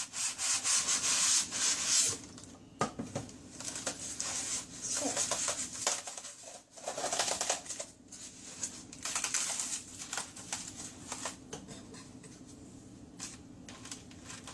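Packaging being scraped and rubbed while a box is worked open, in several scratchy spells of a second or two with scattered clicks.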